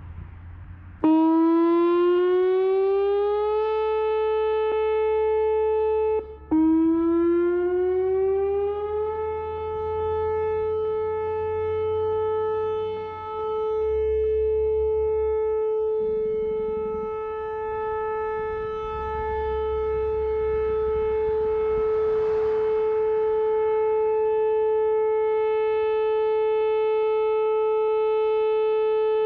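Whelen rotating outdoor tornado warning siren sounding its weekly test. It winds up with a rising wail about a second in, cuts out briefly near six seconds, winds up again, then holds a steady wail that swells and fades gently as the siren rotates.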